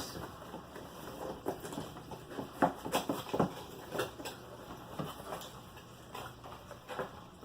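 Boxed vinyl figures and their cardboard packaging being handled, giving scattered light taps, scrapes and rustles at irregular intervals.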